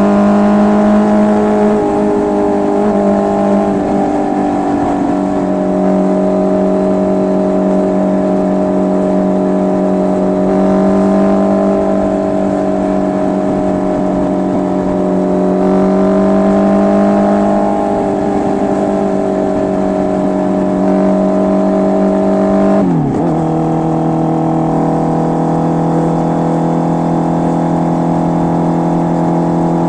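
Honda CB650R's inline-four engine through an SC Project full exhaust system, running at steady high revs, with the pitch easing slightly up and down. About 23 seconds in, the revs drop sharply and the engine settles at a lower steady note.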